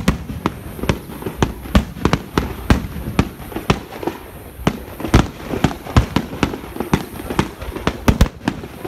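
Fireworks display: aerial shells bursting in a steady, irregular run of sharp bangs, about two a second, with a quick double bang near the end.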